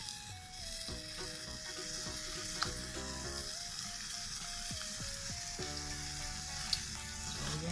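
Canned tuna sisig sizzling in a stainless steel pan as a plastic spoon stirs it: a steady high hiss, with two sharp ticks, one about two and a half seconds in and one near the end.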